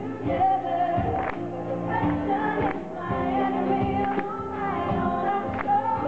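Live music: a woman singing to an acoustic guitar, with the audience clapping along in time, about one clap every 0.7 seconds.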